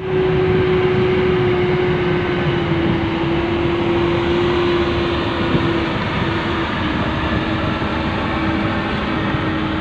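Heavy-machinery engine running steadily: a loud, even drone with a constant hum that dips slightly in pitch about halfway through.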